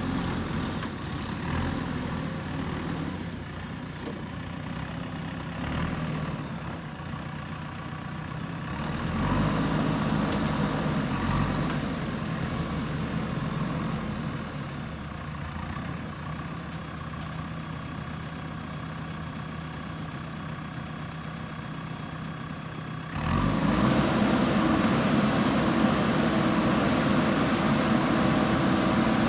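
Backhoe loader's diesel engine running as it works, its level rising and falling. It jumps suddenly louder about three-quarters of the way through.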